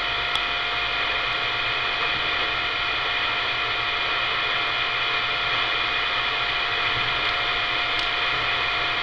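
CB radio receiver putting out a steady static hiss between transmissions, with no station on the channel. A steady whistle runs under the hiss and stops just before the end.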